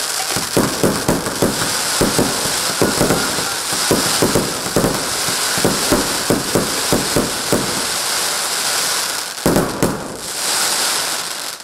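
Firework cake firing a rapid volley of shots, about three a second, which burst into crackling stars and keep up a dense crackle. The shots stop about eight seconds in. A few more go off near the end, followed by a last thick burst of crackling.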